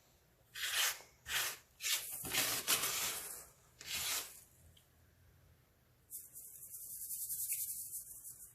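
Crunchy baking soda chunks being crushed: several short crunches in the first four seconds, then after a pause a steady fine, high crackling hiss.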